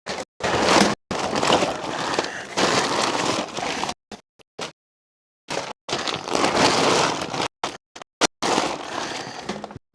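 Dry grain feed poured and stirred in a feed can: a rushing, crackling hiss of kernels that cuts out abruptly to silence several times, longest for about a second near the middle.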